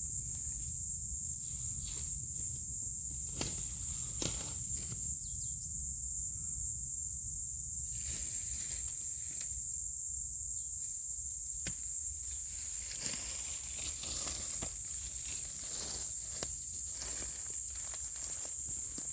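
Footsteps crunching through dry leaf litter and twigs, with irregular snaps and crackles that grow busier in the second half, over a steady high hiss and a low rumble.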